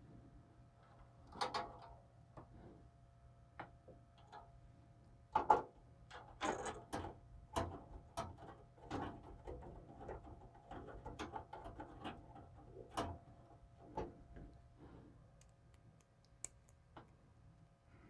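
Small screwdriver turning motherboard screws into a PC case's standoffs: faint, irregular clicks and short metal scrapes as the screws are driven and the board is handled.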